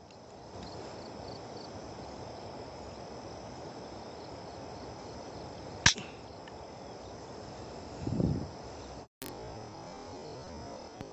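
Steady chirring of insects, crickets among them, with a single sharp crack about halfway through, most likely a shot at a bird. About two seconds later comes a brief low rumble, and just after that a short drop-out.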